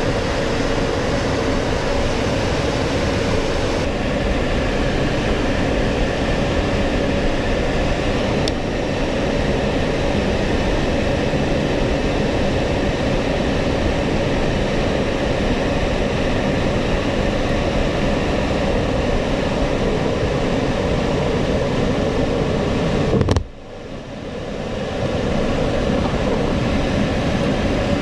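Steady cockpit noise of a B-52 bomber in flight: engine drone and airflow rushing past the canopy while it holds position behind a refuelling tanker. About 23 seconds in there is a click and the noise drops away sharply for a moment before coming back.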